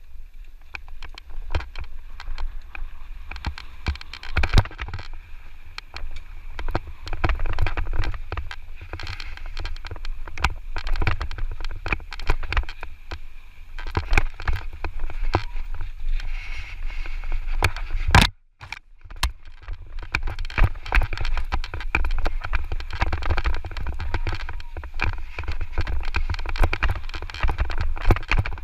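Electric mountain bike rattling and clattering over a rough, sandy trail on a descent, with wind buffeting the microphone; the sound drops out briefly about two-thirds of the way through.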